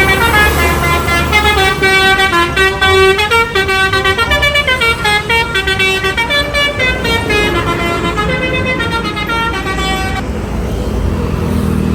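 Bus telolet horn, a Basuri multi-tone air horn, playing a quick tune of changing notes. It stops about ten seconds in, leaving a low engine-like rumble.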